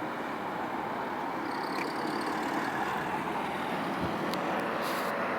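Steady outdoor vehicle noise, a continuous even rumble, with a brief faint hiss near the end.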